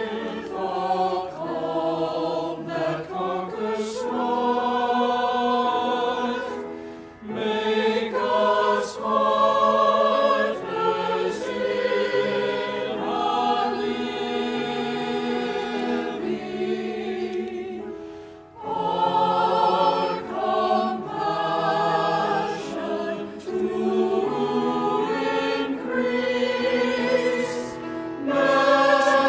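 Church choir singing a hymn-like anthem, holding and changing chords, with two short breaks in the sound about seven and eighteen seconds in.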